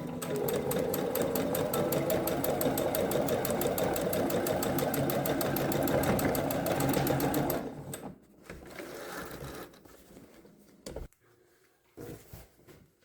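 Sewing machine stitching at a fast, even pace for about seven and a half seconds, then stopping, followed by a few faint handling sounds.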